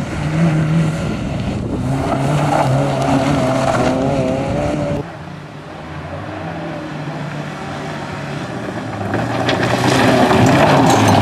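Honda Civic EG3 rally car's four-cylinder engine revving hard, its pitch climbing and dropping with gear changes. About halfway the sound drops away suddenly, then builds again as the car comes closer, with gravel crackling off the tyres near the end.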